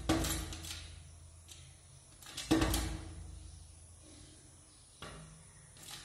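A bird's beak tapping on window glass in quick bursts of sharp taps: a burst at the start, a louder one about two and a half seconds in, and a single knock near the end.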